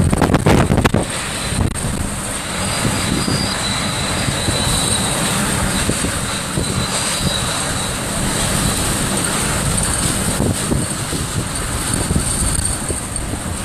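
Hurricane-force wind in Hurricane Michael's eyewall, a loud, steady rush that swells in gusts, with a few knocks in the first second and a faint high whistle.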